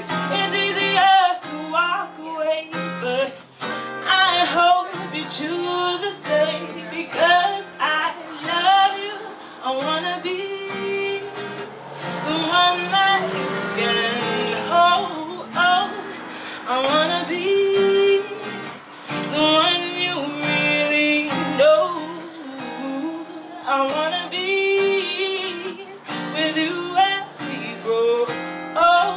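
A woman singing a slow song and accompanying herself on an acoustic guitar.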